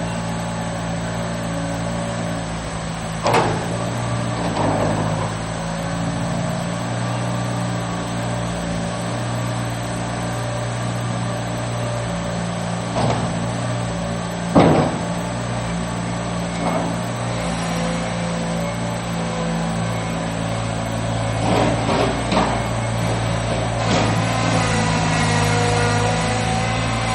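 Gehl 4510 skid steer's engine running steadily, with a few sharp clunks over it.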